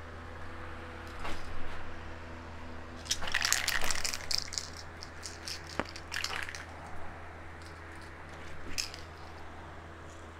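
Bursts of crackling and rustling as painted plastic fairing pieces and plastic sheeting are handled and hung, over the steady low hum of a booth fan.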